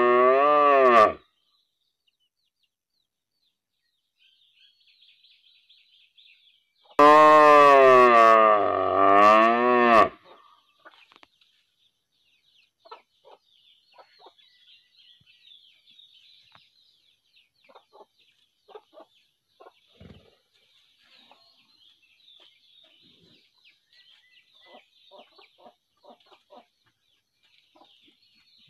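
Cow mooing: one long moo that ends about a second in, then another long, loud moo about 7 seconds in lasting roughly three seconds. Between and after the moos, faint chicken clucking.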